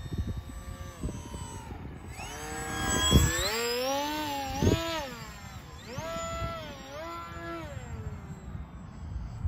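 Brushless electric motor and propeller of a small foam-board RC plane whining in flight, its pitch rising and falling. The sound swells twice, loudest about three to five seconds in and again around six to eight seconds in.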